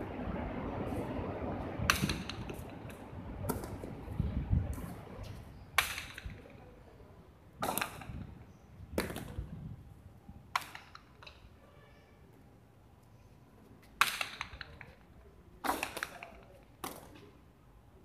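A jai alai pelota cracking sharply against the frontón wall and floor, about ten hard impacts at irregular intervals, each with a short ringing echo. A low rumble underlies the first few seconds.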